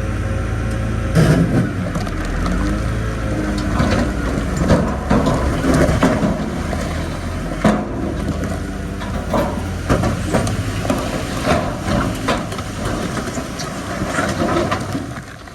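Bulldozer's diesel engine running under load, with rock crunching and knocking from about a second in.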